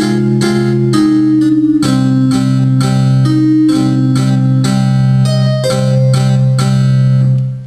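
Digital piano played by a beginner child: a simple melody struck note by note, about two notes a second, over held low notes. The last notes die away near the end.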